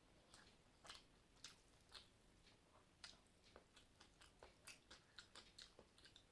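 Faint close-up chewing of soft food, rice and jackfruit curry, with many short, irregular wet mouth clicks.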